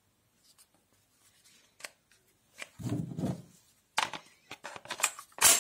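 Hard plastic clicks and rattles of an 18 V Makita-type battery pack being handled and slid onto a cordless impact wrench, with a dull scrape about three seconds in and a loud sharp click near the end as the battery latches in.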